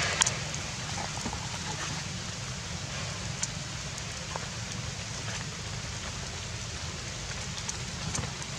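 Steady outdoor background hiss with a low rumble and a few faint ticks; no distinct event stands out.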